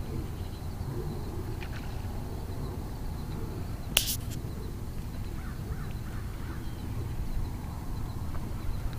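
Steady low outdoor rumble with a few faint bird calls, and one sharp click about four seconds in that is the loudest sound.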